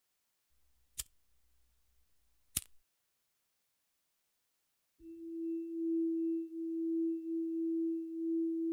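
Two sharp clicks of a pocket lighter being flicked, about a second and a half apart, the second one louder. About five seconds in, a steady pure tone starts and holds.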